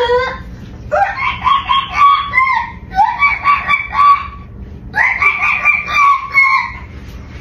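A woman singing in a high-pitched screech: three long held notes, each a second or more, with short breaks between them.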